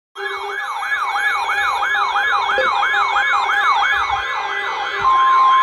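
Electronic warning siren opening an emergency alert broadcast, its pitch sweeping up and down about three times a second over steady background tones. About five seconds in, a single steady alert tone starts over it.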